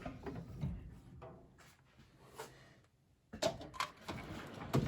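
Steel tool chest drawers being handled: scattered light clicks and knocks, a brief lull, then several louder knocks in the second half.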